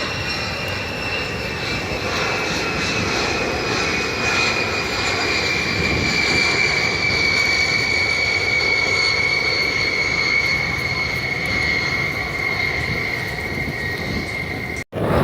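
Airplane engine overhead at an air show: a steady rushing roar with a high whine that slowly falls in pitch as the plane passes. The sound drops out for an instant near the end.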